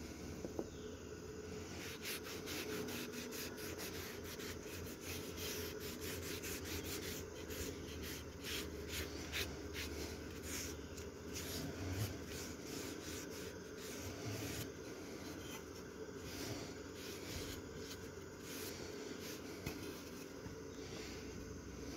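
A cloth rag wiping wood stain onto a small wooden board: a long run of quick, faint rubbing strokes that starts about two seconds in and eases off near the end.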